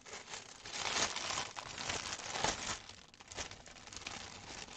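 Clear plastic packaging crinkling as it is handled and opened to get at a bundle of cross-stitch embroidery floss. It comes in uneven rustles, loudest about a second in and again around two and a half seconds.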